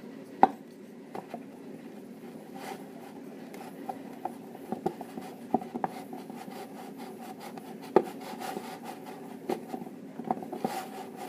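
A spoon stirring a thick dish-soap mixture in a stainless steel bowl: scraping and rubbing, with irregular knocks against the bowl's side, the sharpest about half a second in and about eight seconds in, over a steady low hum.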